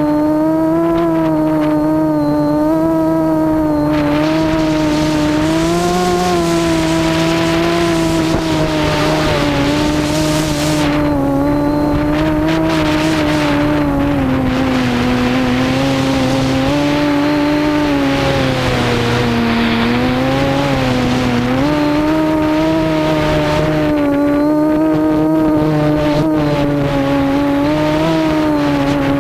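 Quadcopter's brushless motors (Cobra 2213 2000kv with APC 7x4 props) whining in flight, the pitch wavering up and down with throttle changes. Long stretches of rushing noise come and go over the top of the whine.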